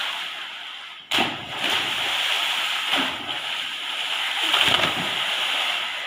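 Swimmers plunging into a concrete water tank and splashing: a sudden splash about a second in, then steady splashing and churning of the water, loudest near the end.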